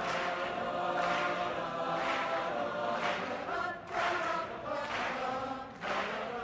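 Background music with sustained choir-like voices, with new notes or chords coming in about once a second.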